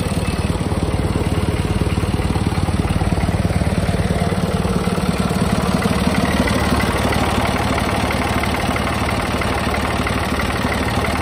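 Kubota M1-55 tractor's three-cylinder diesel engine idling steadily. Its beat is a little harsh, the typical running sound of a three-cylinder engine.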